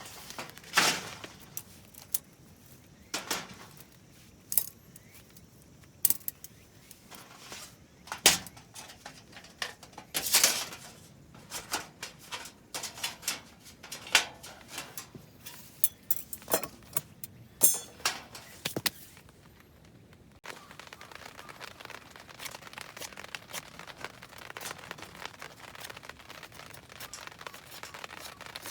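Irregular jangling clinks and sharp knocks, like small hard objects being handled. About twenty seconds in they stop and a steady hiss takes over.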